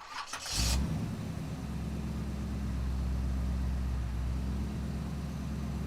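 A vehicle engine running steadily with a low hum, after a short hiss in the first half-second.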